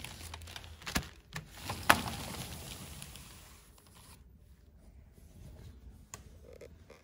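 Clear plastic sheeting crinkling and rustling as it is handled, with two sharp clicks about one and two seconds in. The rustling dies down after about four seconds.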